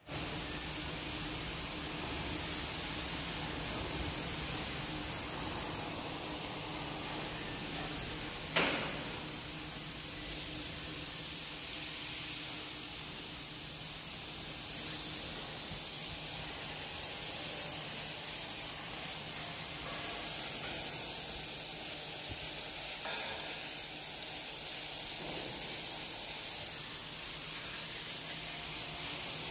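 Steady hiss of a steel shipbuilding shed's working noise over a low constant hum, with one sharp knock about eight and a half seconds in.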